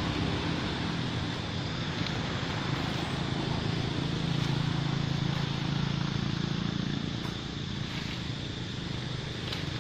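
A motor running steadily with a low hum that swells a little in the middle, over constant outdoor hiss.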